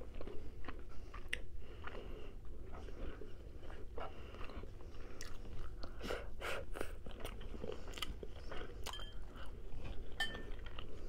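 Close-up mouth sounds of a person chewing rotisserie chicken, with many short wet clicks and smacks.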